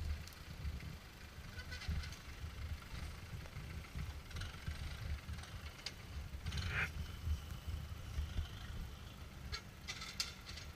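Land Rover Discovery engine running at low revs while the 4x4 crawls over rough, muddy ground, with a low, uneven rumble. Scattered creaks and clicks are heard, along with a short falling squeal about two-thirds of the way through and a quick run of sharp clicks near the end.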